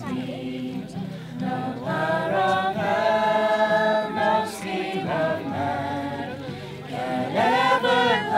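A group of voices singing together, holding long sung notes, getting louder near the end.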